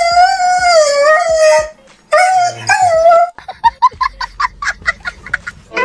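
A high, wavering howl held for nearly two seconds, a shorter one after a brief break, then a quick run of short high yelps, about five a second.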